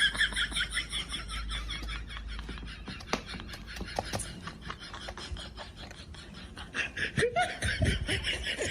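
A person laughing hard in quick, high-pitched bursts. The laughter fades after about two seconds and picks up again near the end, with a couple of sharp clicks in between.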